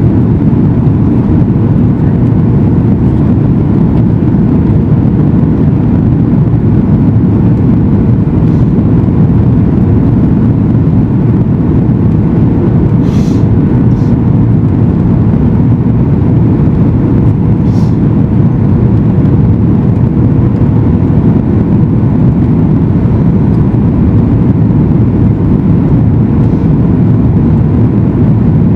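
Steady cabin noise of a Boeing 737 MAX 8 in flight, engine and airflow noise heard from inside the cabin, with a faint steady hum running through it. A couple of faint ticks come about halfway through.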